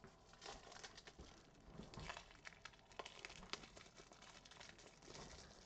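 Faint crinkling and rustling of plastic being handled, with scattered light clicks.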